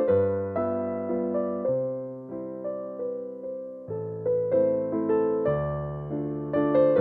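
Background music: a piano playing a gentle melody over chords, each note struck and left to fade.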